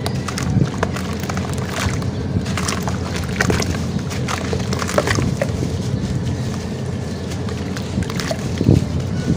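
A large chunk of sand-cement being crushed and crumbled by hand in a tub of water: gritty crunching and sharp cracks, with water sloshing. A steady low rumble runs underneath.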